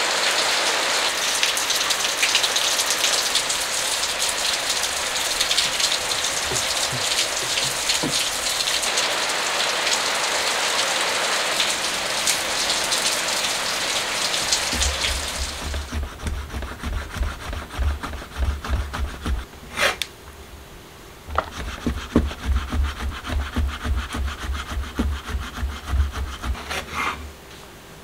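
Steady rain falling for the first half. About halfway through it gives way to a kitchen knife cutting cooked chicken on a plastic cutting board, in quick, even strokes with one short pause.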